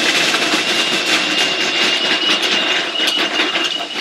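Small electric food processor running, its motor whine steady and creeping slightly higher in pitch, with scattered knocks as the blade chops medjool dates and cacao powder into a sticky paste.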